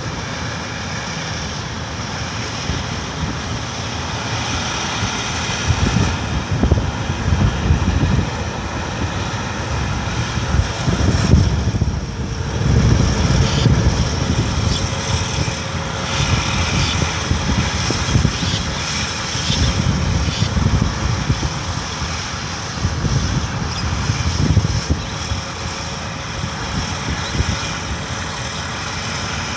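Rice harvesting machine's engine running steadily under load, with a continuous low rumble that swells and eases and the clatter and hiss of the machinery over it.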